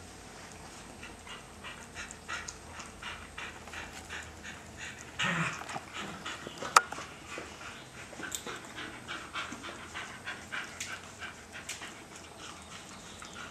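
Irish terrier licking at another dog's mouth and teeth: a quick, uneven run of wet licks and smacks with panting. About five seconds in there is a louder rough burst, and soon after it a single sharp click, the loudest sound.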